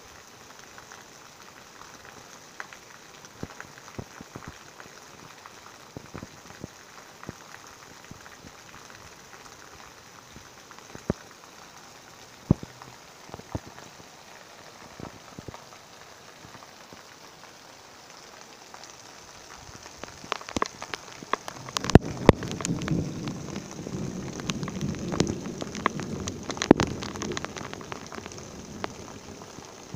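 Heavy rain falling on a concrete lane: a steady patter with scattered sharp drop splashes. About twenty seconds in it grows louder and fuller as a stream of water pours down and splashes onto the pavement.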